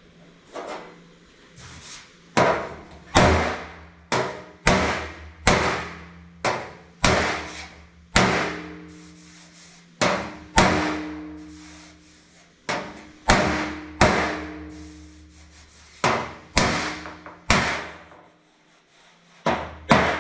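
A hammer strikes the sheet steel of a 1959 Chevrolet truck bed over and over, roughly once a second, beating out dents against a sandbag backing. Each blow is sharp and leaves a short metallic ring, and there is a brief pause near the end.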